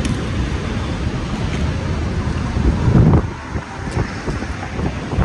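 Wind buffeting the microphone: a steady low rumble, with a louder gust about three seconds in.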